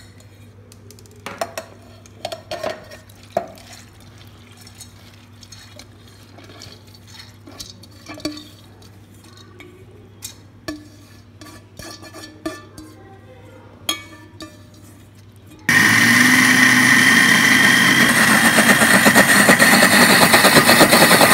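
Steel strainer and hands knocking and clinking against a steel mixer-grinder jar as soaked dal is scraped in. About three quarters of the way through, the electric mixer grinder starts suddenly and runs loud and steady, grinding soaked urad and moong dal with no water added.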